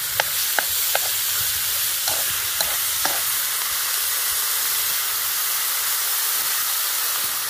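Pork and pangasius fish steaks sizzling in oil in a metal wok, stirred, with a few sharp clicks of the utensils against the pan in the first three seconds.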